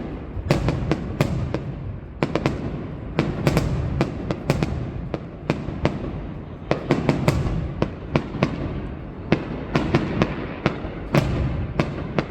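Aerial fireworks display: a dense, irregular run of sharp shell bursts and cracks, often several within a second, over a continuous low rumble.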